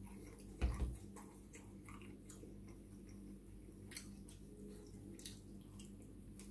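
Close mouth sounds of chewing a chicken doner kebab: scattered wet clicks and smacks. A little under a second in, a dull thump, the loudest sound, as a plastic ketchup squeeze bottle is set down on the worktop. A low steady hum runs underneath.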